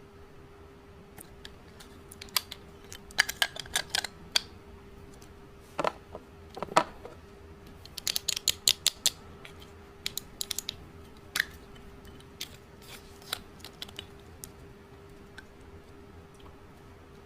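Slime and makeup being handled by hand: sharp clicks and crackles in short runs, densest about eight to nine seconds in, then sparser. A faint steady hum lies under them.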